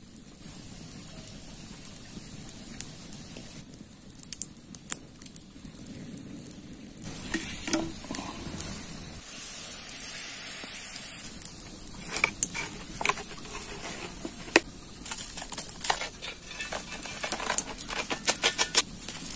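Water poured from a plastic bottle onto charcoal on a shovel, a steady hiss for a couple of seconds near the middle, followed by a run of sharp clicks and crackles, with a campfire burning.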